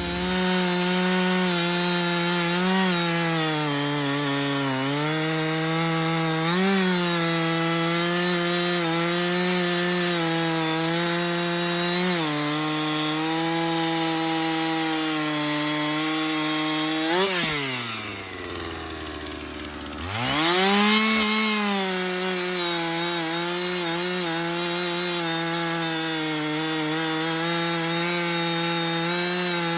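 Two-stroke Husqvarna chainsaw bucking a sycamore trunk, held at full throttle under load with small dips as the chain bites. About 17 seconds in it drops to idle; a couple of seconds later it is revved up high and settles back into the cut.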